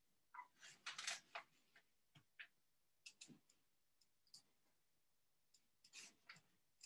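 Faint, irregular clicks and taps of a computer mouse and keyboard, heard over a video-call line. They come in three loose clusters, with near silence between them.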